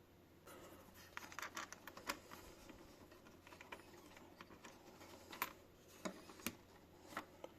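Faint clicks and light scraping of a shim washer being handled and fitted onto a burr coffee grinder's mounting, with a few sharper clicks of parts touching.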